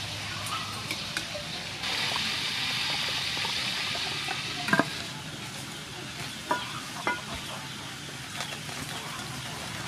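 Pork belly frying in hot oil in an aluminium pot: a steady sizzle that grows louder about two seconds in and eases off after about five. A few sharp metal clinks of a utensil against the pot come in the middle.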